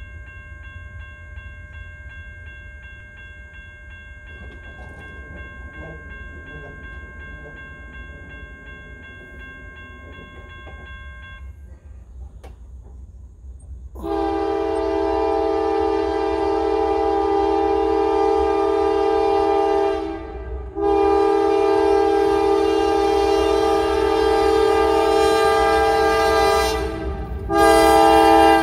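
Grade-crossing warning bell ringing for about the first eleven seconds, then stopping. About two seconds later the lead locomotive's air horn sounds the crossing signal: two long blasts, then a short one near the end, over a low rumble.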